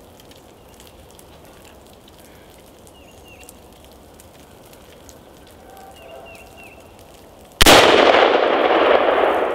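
A single shot from a Colt AR-15 rifle loaded with .223 Remington: one sharp, very loud crack near the end, followed by a long fading tail of echo.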